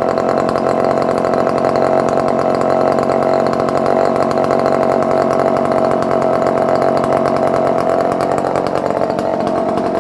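A Dolmar 118 Super two-stroke chainsaw, a freshly revived barn find, running steadily, just above idle.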